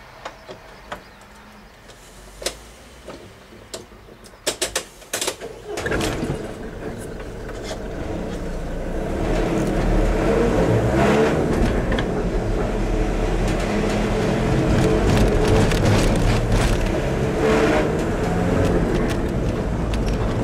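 Car engine pulling away and accelerating, heard from inside the cabin, with road noise building and the engine pitch rising and falling through the gears. A few sharp clicks come in the first seconds before it moves off.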